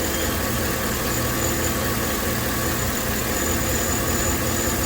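A 2012 Chevy Silverado's 5.3-litre V8 idling, misfiring on cylinders one and seven.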